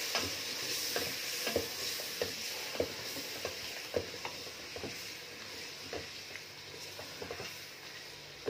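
Chicken and masala sizzling in oil in a steel pot while a wooden spoon stirs and knocks against the pot about every half second; the sizzle slowly fades.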